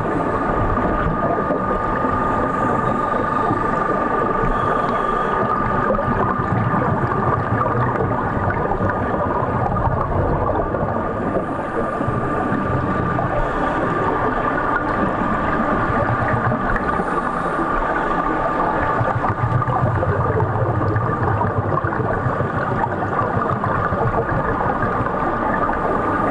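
Underwater ambience in a swimming pool: a steady rushing noise with a constant high tone running through it, with no clear breaks.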